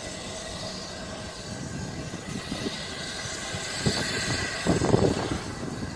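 Steady hiss and rumble from the distant steam locomotive Tornado, an LNER Peppercorn A1 Pacific, standing at the platform. Wind starts buffeting the microphone in irregular gusts about four seconds in.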